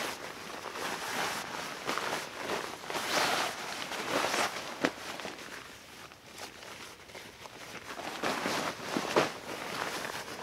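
Rustling and swishing of a camouflage bivy bag's synthetic fabric as it is pulled from its stuff sack and spread out by hand, in irregular swishes with two sharp clicks, one near the middle and one near the end.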